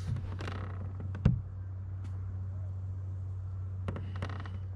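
Handling noises on a plastic fishing kayak: small creaks and clicks, with one sharp knock about a second in, over a steady low hum.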